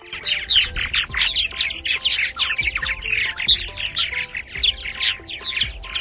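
Purple martin chattering: a dense, unbroken run of quick chirps, several a second.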